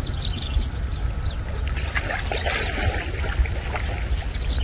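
Water splashing and trickling in small irregular bursts over a steady low rumble.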